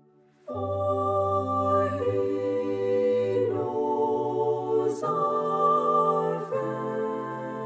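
A mixed SATB choir singing slow, sustained chords. It enters about half a second in after a brief silence and moves to a new chord every second or two.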